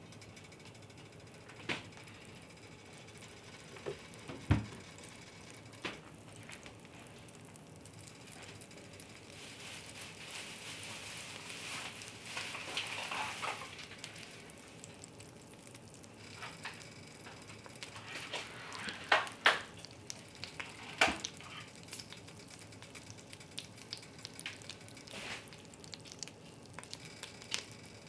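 Butter sizzling in a hot cast-iron Dutch oven, with scattered sharp pops and crackles. The sizzle swells for a few seconds about ten seconds in, and the loudest pops come about two-thirds of the way through.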